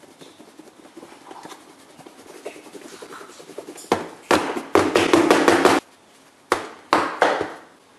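Flour and spice mix being shaken in a lidded plastic food container: soft shuffling at first, then about two seconds of rapid, loud shaking starting around four seconds in, and three more sharp shakes near the end.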